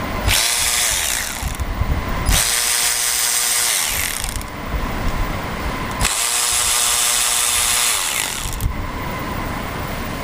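A handheld power driver runs three times, each run lasting one to two and a half seconds with a steady motor whine that winds down at the end, as it backs out small E8 external-Torx bolts.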